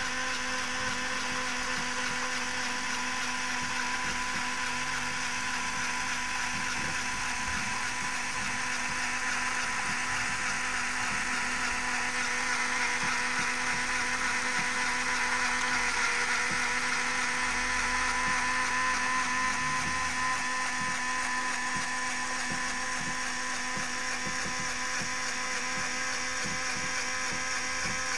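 Small LEGO electric motor running steadily, driving plastic gears and a LEGO Technic chain that raise a lift's fork carriage: a constant whine with a rattling, ratchet-like clatter from the chain and gears.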